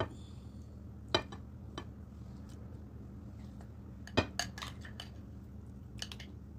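Metal spoon clinking against a glass bowl as stew is spooned out: a few scattered, sharp clinks, with a short cluster of them about four seconds in.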